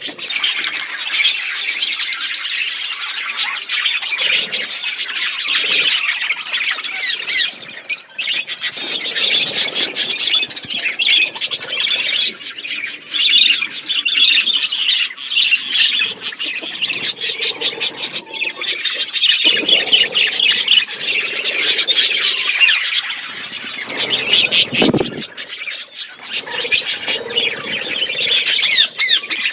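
A flock of budgerigars chattering and chirping, many birds calling at once without a break.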